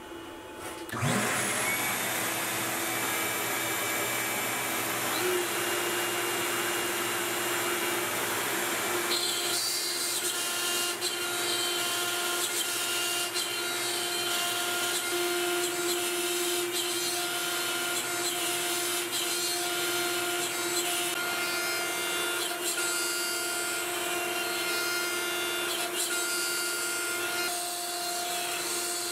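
Dust-collection vacuum switched on: its motor spins up about a second in and then runs with a steady whine. About nine seconds in the Makita router on the CNC joins in and carves into pine, adding a rough cutting noise with small ticks over the steady motor sounds.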